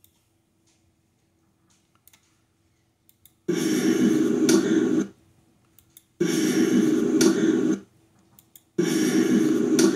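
The same short snippet of a recording, about a second and a half long, is played back three times from an audio editor with short gaps between. The snippet is a loud, dense noise, mostly low, with a sharp click about a second into each play, played over as a possible spirit voice (EVP). A faint steady hum fills the gaps.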